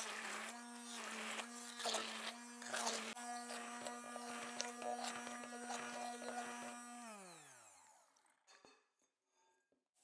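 Immersion blender running, puréeing soft cooked eggplant, a steady motor hum with churning noise from the blade. About seven seconds in it is switched off and the pitch winds down over about a second.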